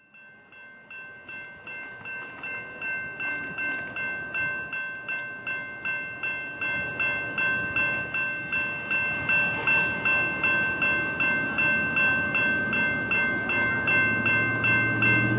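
Railroad grade-crossing warning bell ringing at about three strikes a second, fading in and growing louder as the crossing activates. A low rumble builds underneath near the end.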